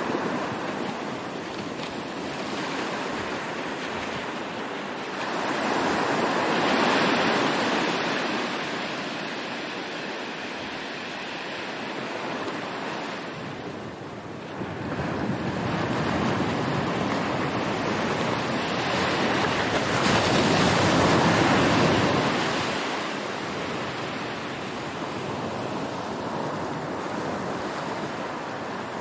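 Ocean waves washing onto a shore in a steady hiss. The surf swells louder and recedes, with the biggest surges about seven seconds in and again past the twenty-second mark.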